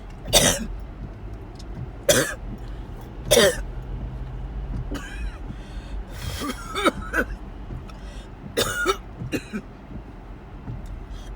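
A person in a coughing attack: three hard, loud coughs in the first few seconds, then a run of smaller coughs and throat-clearing, over the steady low rumble of a car cabin.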